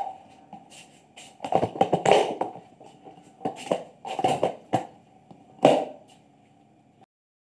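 Cats eating from a shallow plastic food tray on the floor: irregular short bursts of tapping and rattling as the tray is nudged, mixed with chewing. The sound cuts off suddenly about seven seconds in.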